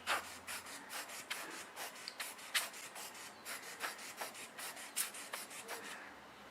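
Rubber hand-squeezed air blower puffing air at a camera lens, a quick series of short soft puffs about three a second that stop about six seconds in.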